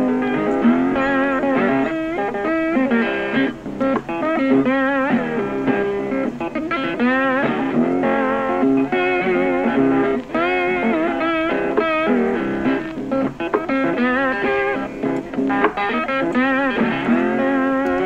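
Background music led by a guitar, its notes wavering and bending.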